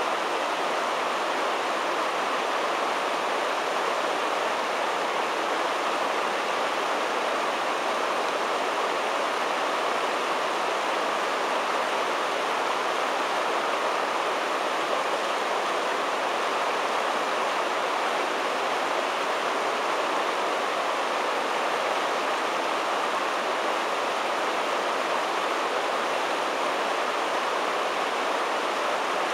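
Whitewater of a river rapid and standing wave rushing steadily, an even, unbroken wash of churning water with no distinct splashes.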